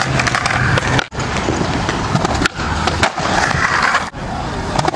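Skateboard on concrete: wheels rolling and the board knocking sharply against the ground after a bailed kickflip. The sound cuts out briefly a few times.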